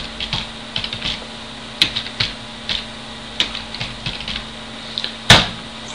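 Typing on a computer keyboard: irregular key clicks while an address is entered, with one much louder key strike a little over five seconds in.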